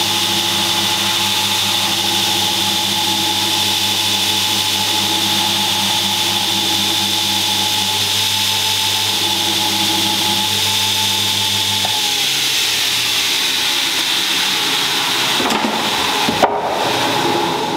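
Belt grinder running, with a steady motor hum and the hiss of the abrasive belt grinding a steel knife blank cut from a truck spring. About twelve seconds in the low hum drops away while the belt hiss carries on, and a few sharp knocks come near the end.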